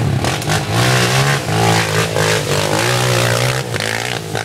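Dirt bike engine revving hard in repeated surges, its pitch rising and falling as the rider works the throttle, with the rear wheel spinning and flinging mud.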